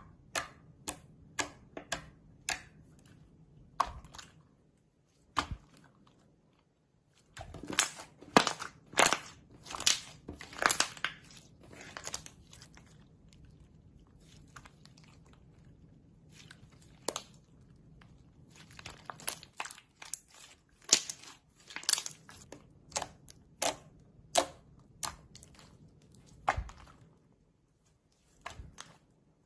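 Slime being poked, pressed and stretched by hand, giving a run of sharp, sticky clicks and pops. The clicks come one at a time at first, then in dense clusters with short quiet gaps between them.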